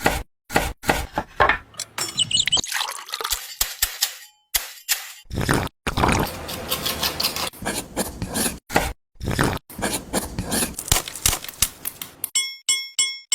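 Clinks, knocks and scrapes of small bricks and tools being handled, cut together in short bursts, with a squeak about two seconds in. Near the end comes a quick run of repeated electronic chime tones.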